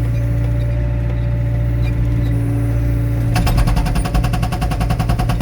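Excavator's diesel engine running steadily. About three seconds in, its hydraulic breaker starts hammering rapidly at roughly ten blows a second, splitting a wet log for firewood.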